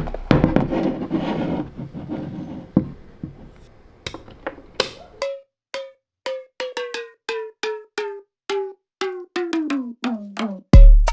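A few seconds of rustling noise, then a sparse percussive music track: short struck notes with a ringing pitch, a few a second, a run sliding down in pitch, and a deep bass hit near the end.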